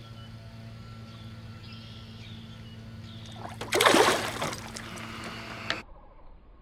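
A bass released from the hand thrashes back into the water with one loud splash about four seconds in, over a steady low hum.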